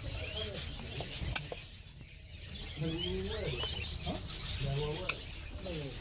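Several caged small birds chirping and twittering in short, quick high notes. Two sharp clicks stand out, about a second and a half in and again about five seconds in.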